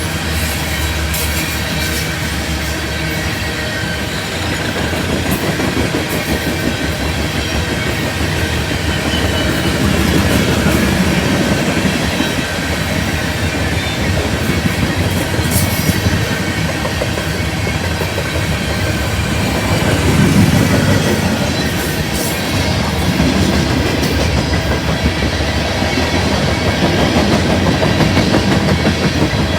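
Freight train cars rolling past at close range: a steady rumble of wheels on rail, with intermittent clicks as the wheels cross rail joints.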